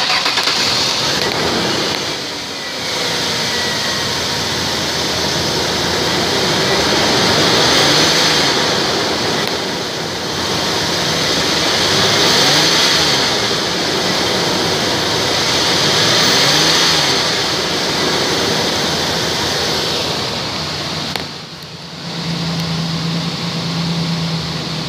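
2002 Ford Explorer's V6 engine running, revved up and back down about three times, then settling to a steadier run after a brief dip near the end.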